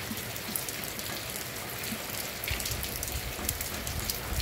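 Heavy rain falling steadily: a dense hiss of drops with many sharp little ticks of drops striking close by. A low rumble joins about halfway through.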